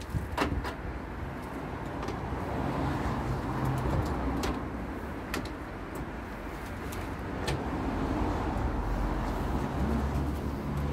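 A few sharp clicks and knocks of car body parts and the bonnet being handled, the strongest about half a second in, over a steady low outdoor rumble.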